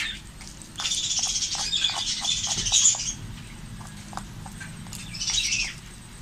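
Small birds chirping and chattering: a dense, rapid, high-pitched chatter lasting about two seconds from about a second in, and a shorter burst near the end.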